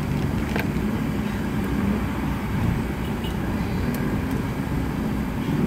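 Steady low rumble of engines in jammed, slow-moving traffic of trucks and buses, heard from inside a car.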